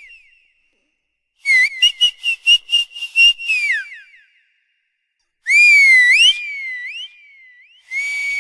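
High-pitched whistling in short phrases. First comes a quick run of about eight chirping whistles that fall away at the end. After a pause there is a loud swooping whistle with a softer wavering slide after it, and then a long steady note that flicks upward at its end.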